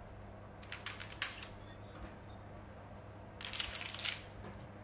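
Faint taps and paper rustles of fingers setting cookie dough onto a parchment-lined baking tray: a few light clicks about a second in, then a short cluster of soft taps a little after three seconds.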